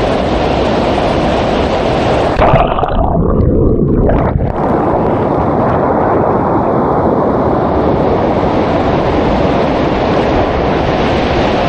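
Purling Brook Falls roaring: a loud, steady rush of falling water. A few seconds in, the sound turns muffled for about two seconds before the full rush returns.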